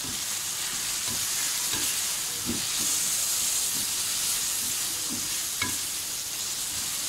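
Chicken pieces and chopped tomatoes sizzling steadily in hot oil in a metal pan while being stirred with a wooden spatula, which scrapes and knocks against the pan now and then.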